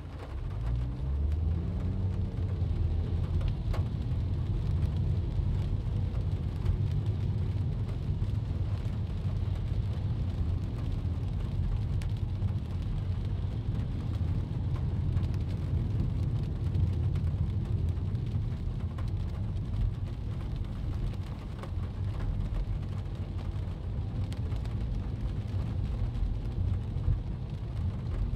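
Heard from inside the cabin, a car drives on a wet road in the rain: a steady low rumble of engine and tyres on wet asphalt, with rain on the glass and body. The rumble swells about half a second in and then holds steady.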